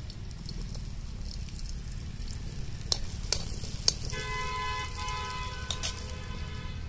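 Crushed ginger-garlic sizzling in hot oil in a kadhai over a wood fire, stirred with a metal spoon, with a few sharp clicks of the spoon against the pan. From about four seconds in, a steady humming tone with several overtones sounds over it.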